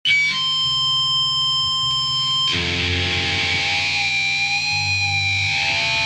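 Sludge metal track opening: heavily distorted electric guitar holding long, ringing chords, moving to a fuller, heavier chord with more low end about two and a half seconds in.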